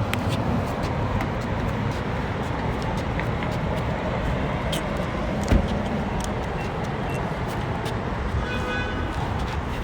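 Steady low rumble of passing road traffic, with scattered light clicks and a single thump about five and a half seconds in.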